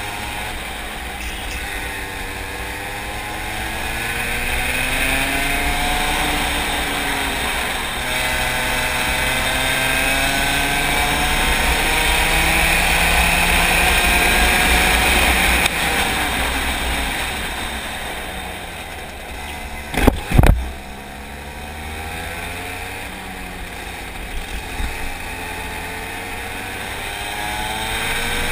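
Racing kart engine heard from the driver's seat, its revs climbing steadily along the straight, dropping off as it slows for a corner, then building again. Two sharp knocks stand out about two-thirds of the way through.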